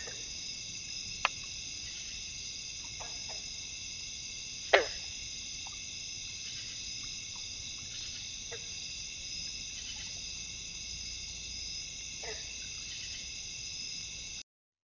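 Steady high, many-toned chorus of night insects such as crickets, with a few short sharp sounds (the loudest about five seconds in) and several brief lower falling calls. The sound cuts off abruptly just before the end.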